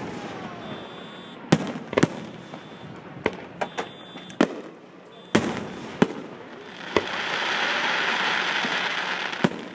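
Aerial fireworks exploding in a series of sharp, separate bangs, followed about seven seconds in by a dense crackling that lasts a couple of seconds.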